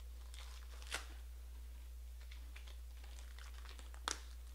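Trading-card pack wrappers crinkling and cards being handled, a run of small crackly ticks with two sharper clicks, about a second in and near the end. A steady low hum runs underneath.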